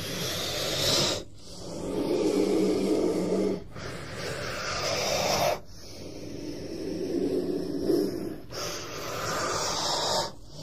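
King cobra's low, growling hiss, repeated as a series of long breathy blasts about two seconds each, with short breaks between them.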